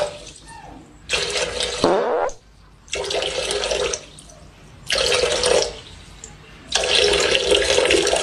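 Water running or splashing in four separate bursts of about a second or more each, with short quieter pauses between; the last and longest begins near the end.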